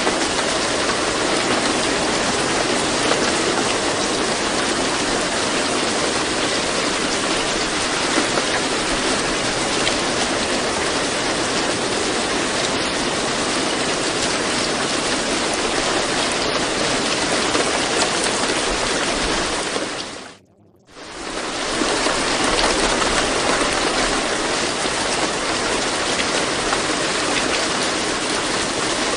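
Steady recorded rain, a dense even hiss, used as the masking bed of a subliminal track. About two-thirds of the way through it fades out to near silence for about a second and fades back in, as at a loop restart.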